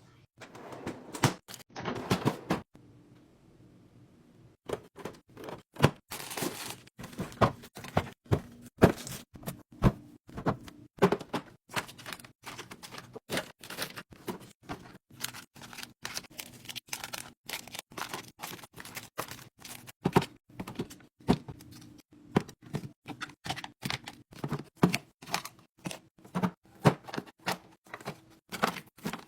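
Packaged snacks and drinks being handled and set into place: a quick, irregular run of taps, clicks, knocks and crinkling packaging.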